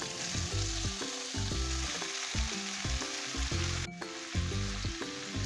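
Brinjal (eggplant) strips frying in an oil pan with onion, tomato and spices, a steady sizzling hiss, under background music playing a run of short notes. Both break off briefly about four seconds in.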